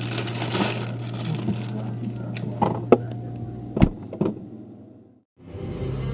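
Plastic bag of lemons rustling and crinkling as it is handled at a fridge, then several sharp knocks as the fridge door is closed, the sound fading out to silence just after. A steady low hum runs underneath and comes back at the end.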